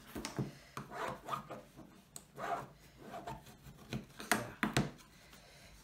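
Cardboard box being handled while adhesive tape is rubbed down into its inside corner with a bone folder: scraping rubs broken by a few sharp knocks, the two loudest about four and a half seconds in.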